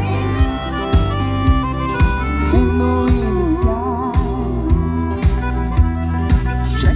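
Country band playing an instrumental passage with a steady kick-drum beat about two per second and a wavering lead melody over it.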